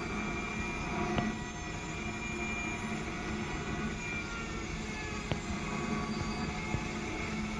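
Sawmill's Yankee saw and its machinery running steadily, with three sharp knocks: about a second in, around five seconds, and near the end.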